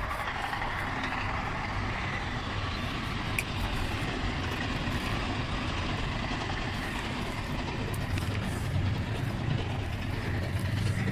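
Steady road-traffic noise: a low rumble with a hiss over it.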